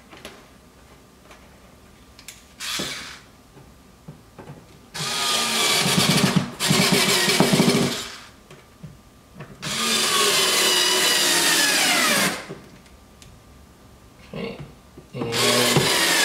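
Cordless drill/driver driving screws, running in several separate bursts of one to three seconds with short pauses between. In one of the longer bursts the whine slows and drops in pitch.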